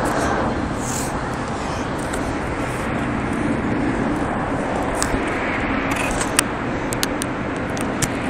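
Steady background rumble and hiss with a low hum, and a few sharp clicks and knocks from a phone being handled over the last few seconds, the loudest about six seconds in.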